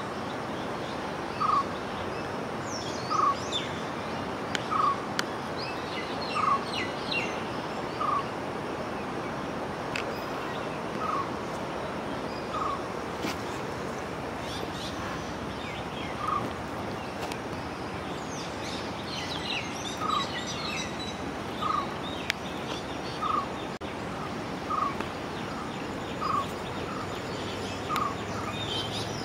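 A bird repeats one short call about every second and a half, pausing once midway, over a steady rushing background. Other birds chirp higher up now and then.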